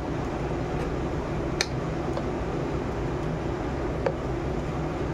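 A steel spoon stirring thick chickpea batter in a bowl, clinking against the bowl three times: near the start, about a second and a half in (the loudest), and about four seconds in. A steady low hum runs underneath.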